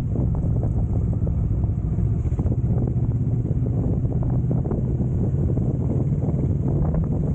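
Motorcycle engine running steadily while riding, with wind buffeting the microphone and frequent small knocks.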